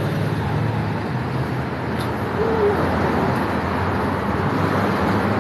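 City street traffic: the steady noise of motor vehicles passing close by.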